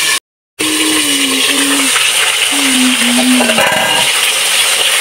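Marinated chicken pieces frying in hot oil in a kadai, with a steady loud sizzle, cut off briefly just after the start by an edit. A low hum comes and goes twice, and a few light metallic clinks, like a spatula on the pan, come about four seconds in.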